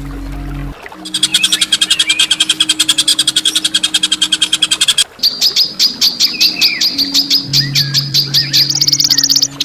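Songbird giving harsh, rapid rattling trills: a fast run of buzzy repeated notes starts about a second in, then after a short break a sharper repeated note takes over and steps higher near the end. A steady low hum runs underneath much of it.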